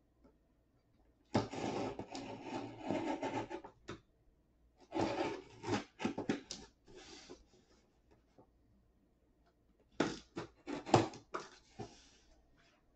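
Sharp blade slicing along the taped seam of a cardboard box in two long scratchy strokes. Near the end come several knocks and rubs as the box is handled.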